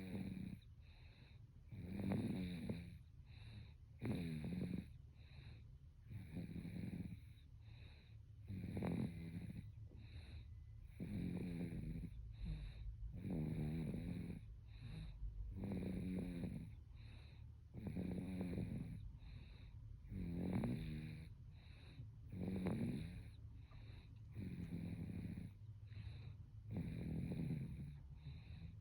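Baby snoring in sleep: a regular snore on each breath, about one every two seconds.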